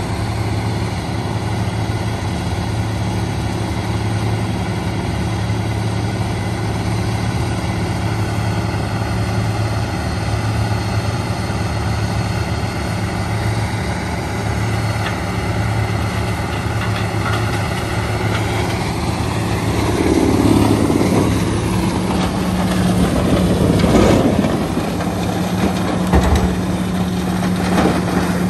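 Heavy diesel engines of a tracked horizontal wood grinder and an excavator running steadily. From about two-thirds of the way through come irregular crunching and a few knocks as wood and debris are dropped into the grinder's hopper.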